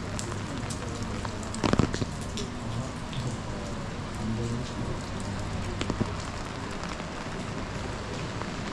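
Steady rain falling on wet stone paving, with a few short sharp taps, the loudest about two seconds in.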